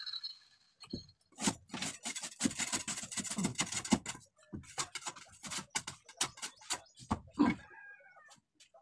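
Irregular clatter of knocks and scrapes from manual construction work on a hollow-block wall and its rubble-strewn floor, in two spells with a short gap about four seconds in.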